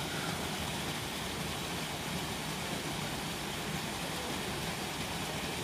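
Small woodland brook pouring over a low cascade: a steady rush of running water.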